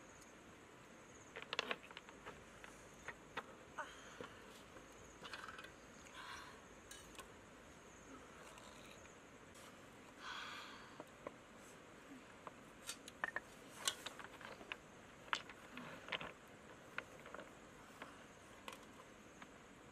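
High, steady insect chirring in the background, with scattered light clicks and knocks and a couple of brief rustles from hands working with cooking utensils and food.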